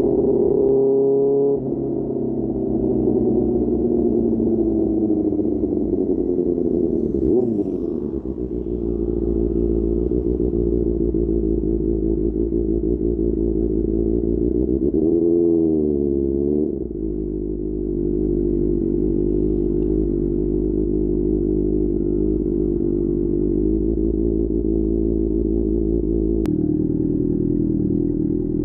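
QJ Motor SRK600's 600 cc inline-four running through an SC-Project aftermarket exhaust while riding. The engine note falls steadily over the first several seconds, rises and falls quickly a couple of times about halfway through, then settles into a steady cruise.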